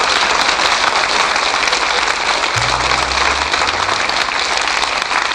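Audience applauding steadily, with a few low notes from the band about two and a half seconds in.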